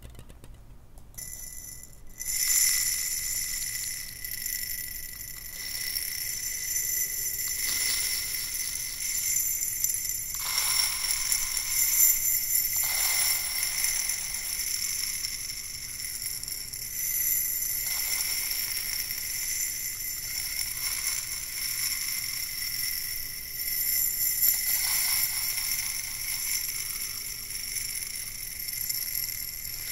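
Steady high ringing tones from a hand-held cylinder cupped around the microphone, with soft rubbing and a few brief brushing swells as the hands move it.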